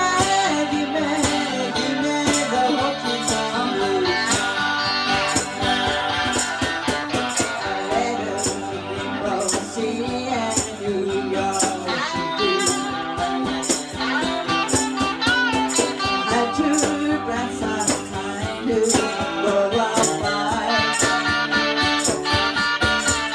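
Small band playing a country-blues number: acoustic and electric guitars, keyboard and cajón, with a tambourine shaken and struck on a steady beat.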